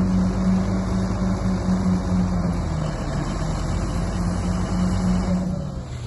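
Heavy construction machine's engine running steadily under load with a strong low hum, easing off near the end.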